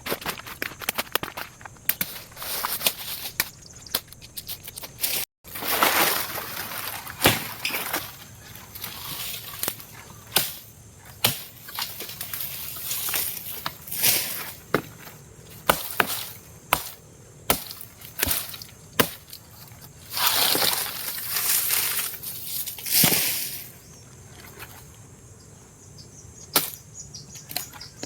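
Irregular, sharp chopping strokes of a blade cutting into wood and plant stems, several dozen hits at uneven spacing, with two longer stretches of rustling, scraping noise between them.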